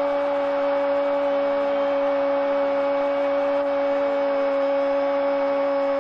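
A steady hum holding one unchanging pitch with several overtones, over a hiss of noise.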